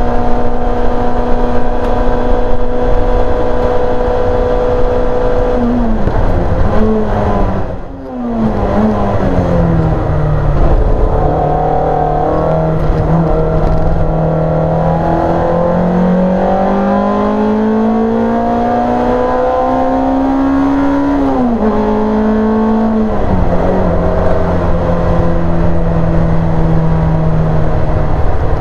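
Rear-mounted engine of a Simca racing car heard from inside the cabin. It is held at steady high revs, then falls away over a couple of seconds with a brief dip in loudness, as when lifting off and braking for a corner. It then climbs slowly and steadily in pitch through a long pull, drops sharply once more about three-quarters through, and runs on steady.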